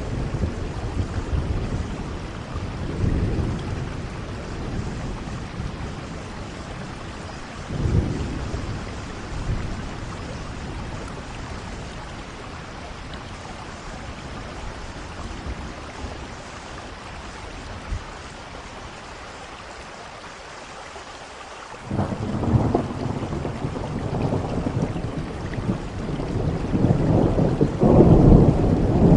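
Steady rain with thunder: low rumbles rise and fade through the first part, then a sudden crack about two-thirds of the way in sets off a rolling rumble that grows louder near the end.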